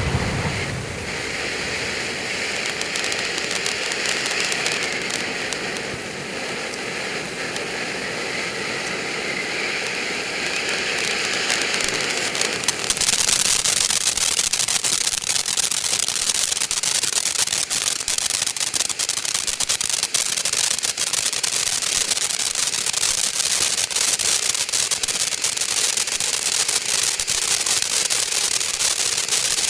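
Fountain firework spraying sparks with a steady hiss, switching suddenly about 13 seconds in to a louder, dense crackle.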